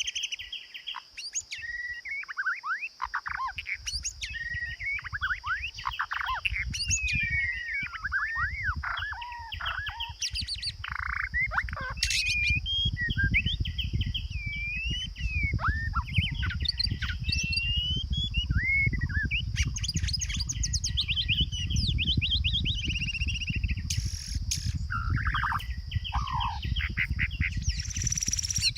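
A songbird singing a long, varied song of quick whistled notes, rising and falling sweeps and trills, with a steady high-pitched hum behind it and a low rumbling noise underneath from a few seconds in.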